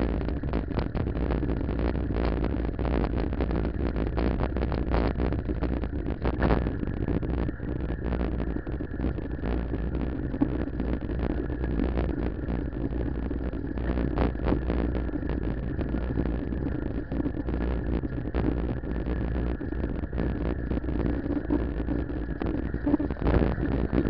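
Wind buffeting the microphone of a camera on a moving bicycle: a steady low rumble with frequent small knocks and rattles from the road, getting louder near the end.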